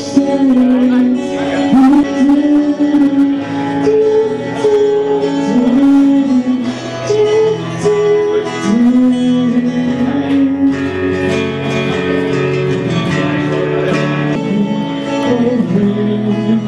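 Music played on plucked string instruments, with a melody line that bends and slides in pitch over steady sustained notes.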